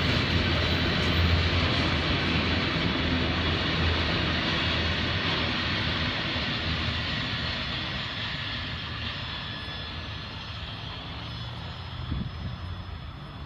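Freight train's autorack cars rolling past, a steady rumble of wheels on rail that fades as the end of the train goes by and draws away. A brief knock near the end.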